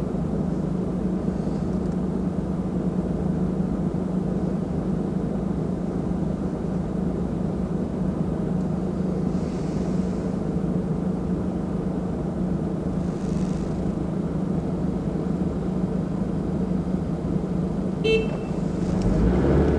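Car engine idling steadily, heard from inside the stopped car. Near the end a brief high chirp sounds, then the engine and road noise rise as the car pulls away.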